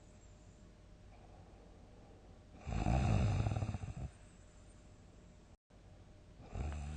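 A person sleeping and snoring loudly: one long, low, fluttering snore about three seconds in, lasting over a second, and the next snore starting near the end.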